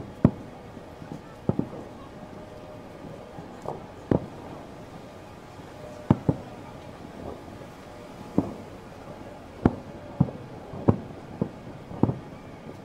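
Fireworks bursting: about a dozen sharp bangs at irregular intervals, some close together in pairs.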